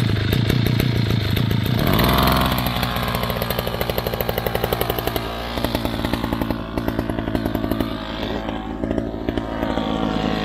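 Two-stroke brush cutter running while cutting grass: an engine buzzing at high speed, dropping to a lower speed about two seconds in, then running on with a rough, pulsing note.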